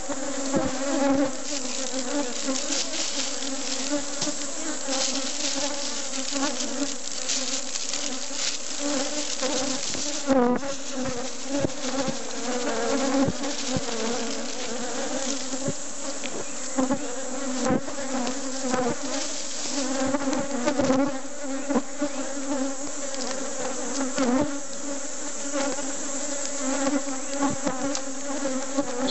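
A honeybee colony buzzing around an opened wooden hive: a steady, even hum of many bees, with brief knocks and clicks scattered through.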